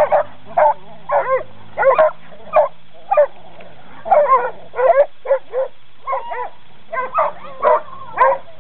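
Coonhounds barking excitedly and repeatedly in short barks, about two a second, as they go at a wire trap cage.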